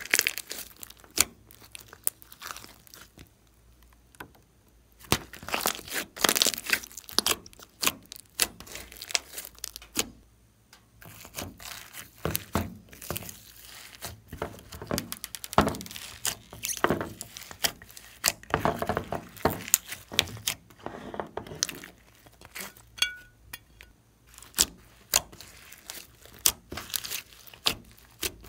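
Slime being squished and pulled by hand, making irregular sticky clicks and crackling pops. There are two short lulls, about four and about ten seconds in.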